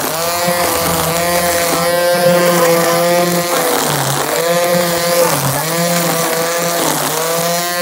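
Gas string trimmer (weed eater) engine running at high speed, its pitch dipping and recovering about three times in the second half as it bogs down under the load of cutting grass.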